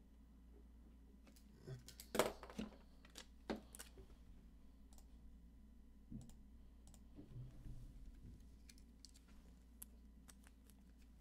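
Faint, scattered clicks and taps of a computer mouse and keyboard. A small cluster comes about two seconds in, then single clicks spread through the rest, over a low steady hum.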